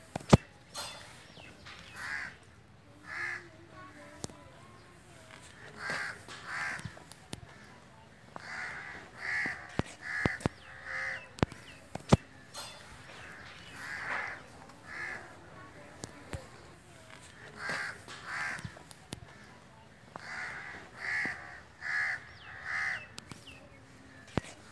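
A bird cawing over and over in short runs of two to four harsh calls, with a few sharp clicks, the loudest just after the start.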